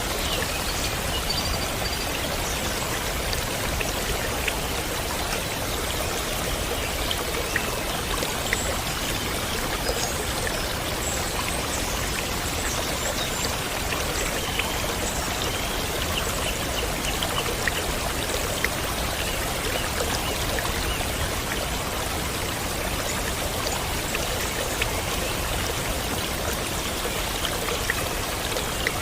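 Steady rush of running water, even and unbroken, with faint short high chirps now and then.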